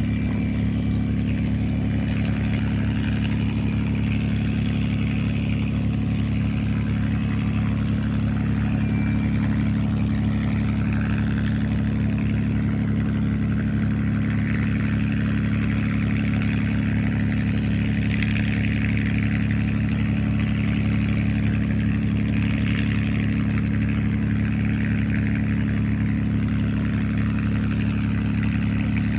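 Vintage piston aircraft engine running steadily at idle on the ground: an even, low drone that holds without revving.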